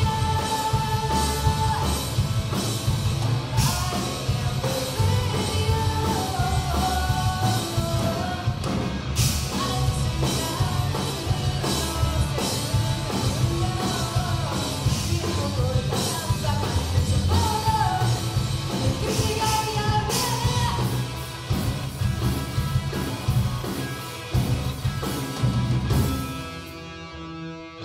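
Rock band playing live: electric guitars, bass and drums with a woman's lead vocal. Near the end the song finishes and the last chord rings out.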